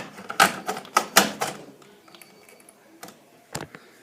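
Handling noise: a quick run of sharp clicks and knocks in the first second and a half, then a few fainter taps.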